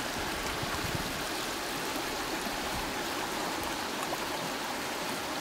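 Small mountain stream rushing over rocks: a steady, even rush of running water.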